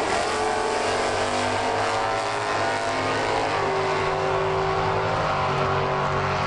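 Two Super Sedan drag-racing cars launching side by side and accelerating hard down the strip, their engines at full throttle. The sound is loud and steady, and the engine pitch shifts several times as they pull away.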